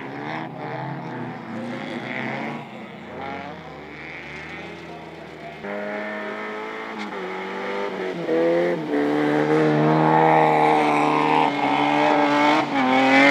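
Folkrace cars' engines revving hard on a snowy dirt track, with the engine note rising and falling. It grows loud in the second half as a car passes close.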